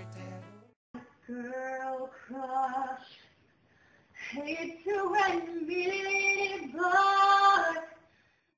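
A girl singing solo and unaccompanied, in long held notes: a short phrase, a pause, then a longer, louder phrase. At the start, the tail of background music fades out under her.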